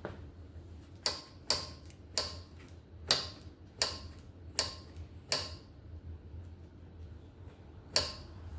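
Bicycle brake lever squeezed and let go again and again, each release snapping back with a sharp click, eight clicks in all, most under a second apart with a pause before the last. This is the new brake cable being stretched out before readjustment.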